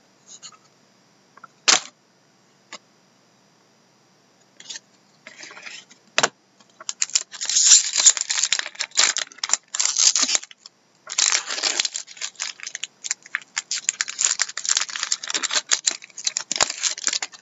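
Trading card pack wrapper being torn open and crinkled, a dense crackling with a short pause partway through. A few single clicks come before it.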